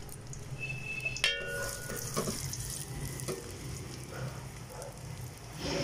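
Dry-ginger spice paste frying in hot oil in a pan: a sizzle that picks up after a metal clink of the utensil about a second in, with stirring.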